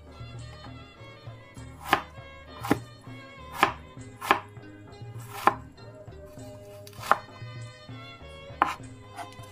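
Tefal chef's knife chopping firm vegetable pieces on a plastic cutting board: seven sharp knocks at uneven intervals, about one a second, with soft background music.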